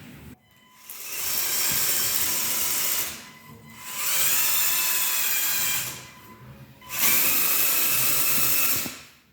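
Electric motors and plastic gears of a LEGO Technic snowmobile model whirring in three runs of about two seconds each, with short pauses between them.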